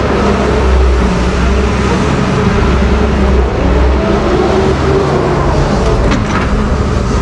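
Doosan wheeled excavator's diesel engine running steadily under load while its hydraulics swing and lower the boom and bucket, with a short clank about six seconds in.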